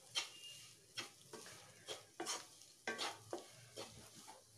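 Egg fried rice being stirred and tossed in a nonstick kadai on the stove: faint, short scraping strokes come roughly twice a second as the rice is turned over.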